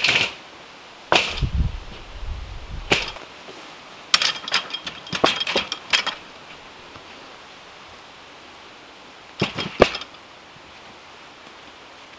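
Sawn ash log rounds being set down and stacked into a metal-mesh garden cart: hard wooden knocks of round against round, in scattered groups, with a low rumble about a second in.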